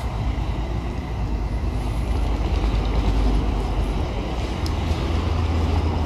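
Wind buffeting the microphone outdoors: a steady low rumble that swells a little midway.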